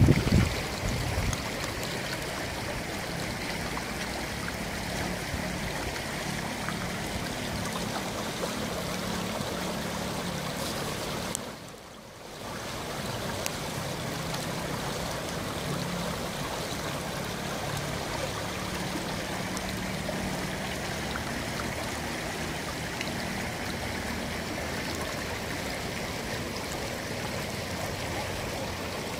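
Muddy floodwater of a wadi rushing steadily, the river in spate after heavy rain. The sound dips briefly about twelve seconds in.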